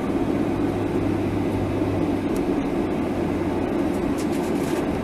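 Cabin noise of a Boeing 737-800 on its landing rollout: a steady rumble of engines and wheels heard from inside the cabin. A low hum in it fades about halfway through.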